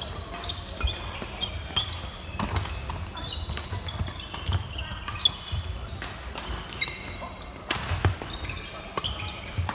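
Badminton doubles rally on a wooden sports-hall floor: sharp racket strikes on the shuttlecock and many short squeaks from court shoes, over the chatter of other players in a large echoing hall.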